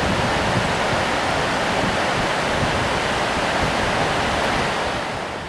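Rapids of a swift mountain river running high: a steady, loud rush of water, fading away near the end.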